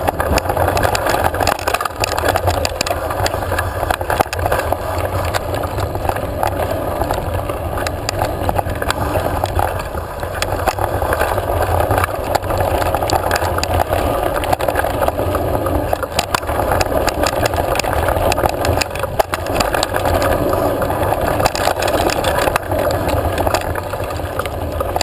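Mountain bike ridden fast over a dirt singletrack, heard from a camera on the bike: a steady rumble of tyres and wind on the microphone, with frequent sharp clicks and rattles from the bike jolting over the rough ground.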